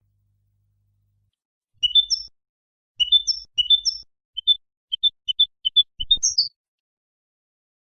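European goldfinch singing: after about two seconds of silence, short phrases of quick, high twittering chirps, then a run of separate quick notes ending around six seconds in.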